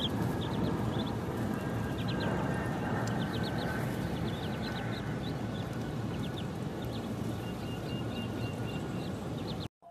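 Ducklings peeping: quick, high cheeps in short runs over a steady rushing background noise, cutting off abruptly near the end.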